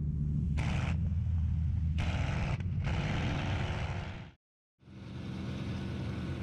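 P-51 Mustang's Merlin V-12 engine running steadily in flight, heard from inside the cockpit as a low drone with hiss that rises and falls over the first four seconds. The sound cuts out completely for about half a second partway through, then the drone comes back a little quieter.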